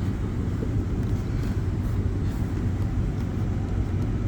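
A steady low rumble with a constant low hum underneath.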